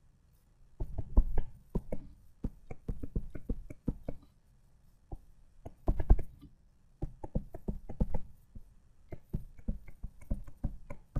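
Stylus tapping and knocking on a tablet screen while handwriting: irregular short ticks, several a second, with a brief pause about four seconds in.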